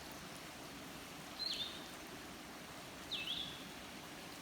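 A bird calls twice, two short high calls that dip and then hold a note, about a second and a half apart, over the steady rush of a creek.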